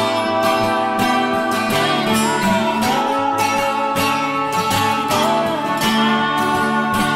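Background music led by strummed acoustic guitar with a slide guitar.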